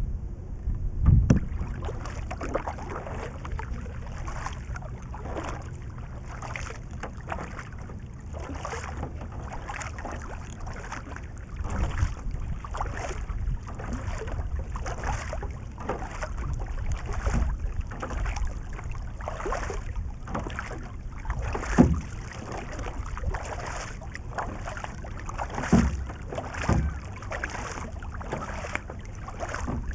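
Double-bladed kayak paddle strokes: the blades dip and pull through lake water, splashing and dripping about once a second in a steady rhythm. A few low thumps stand out, the loudest about two-thirds of the way through.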